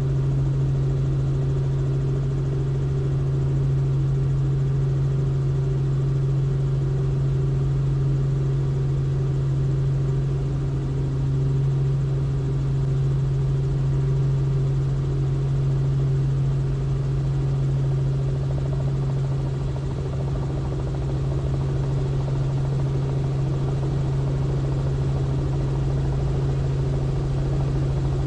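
Robinson R44 helicopter in flight, heard from inside the cabin: its six-cylinder Lycoming piston engine and rotors make a steady, even drone.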